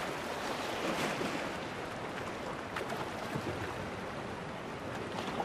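Steady outdoor wash of sea and wind at a boat landing, swelling slightly about a second in, with a few faint clicks.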